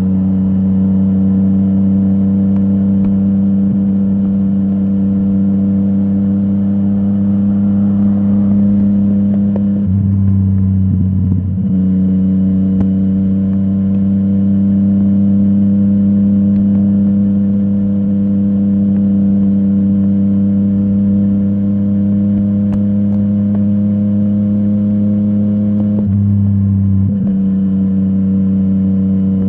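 Yamaha MT-09's crossplane three-cylinder engine through a full Akrapovic exhaust, running at steady revs with an even, unchanging note. Twice, about ten seconds in and near the end, the note drops briefly for about a second before settling back.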